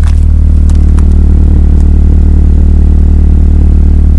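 2001 Honda Accord coupe's four-cylinder engine idling steadily at the exhaust with a deep, even hum, running again now that its failed fuel pump relay has been replaced.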